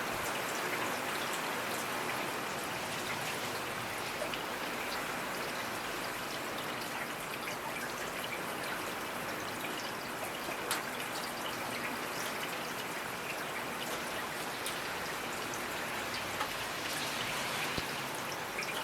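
Steady rainfall, with individual drops ticking now and then over an even hiss of rain.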